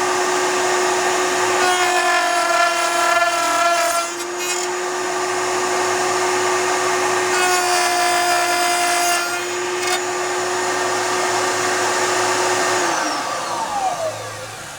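Router in a router table running with a steady high whine while cutting box-joint slots in wood, two cuts each adding a harsher, higher tone. Near the end the motor is switched off and winds down, its pitch falling.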